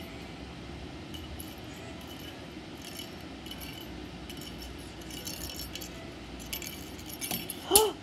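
Budgerigar pecking at and pushing a plastic ball toy with holes, making light clicks and jingling rattles that come more often in the second half. A louder, brief sound comes right at the end.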